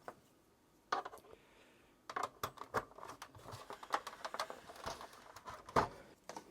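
Scattered clicks and knocks of cables being plugged into a Commodore 64 and the plastic machine being handled, with one louder knock near the end.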